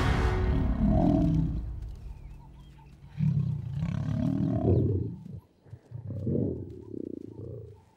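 Male African lions snarling and growling as they fight, in two or three rough bouts with short pauses between them.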